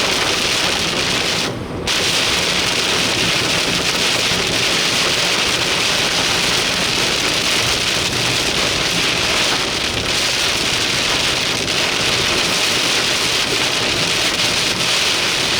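Heavy rain pelting a vehicle, a loud steady hiss with one brief dip about one and a half seconds in.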